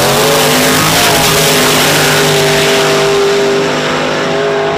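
Two drag cars launching at full throttle and pulling away down the strip, one of them a nitrous big-block Chevy II Nova. The engine note climbs as they launch, steps up about a second in, then holds high and steady.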